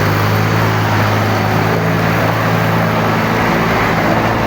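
Tour bus diesel engine idling: a steady low drone over a dense haze of surrounding vehicle noise.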